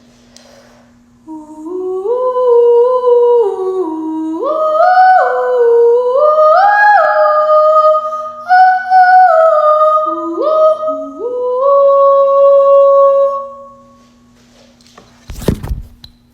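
A wordless voice humming a melody, holding each note steady and sliding up or down to the next, in several phrases. A brief knock comes near the end.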